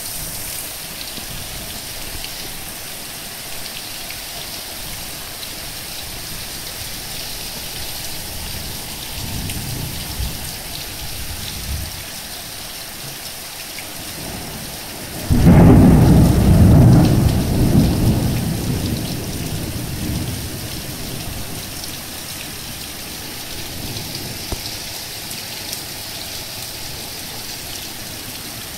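Steady heavy rain on the ground, with a low rumble of thunder about ten seconds in. About fifteen seconds in, a close thunderclap starts suddenly and loudly, then rolls and fades over about five seconds.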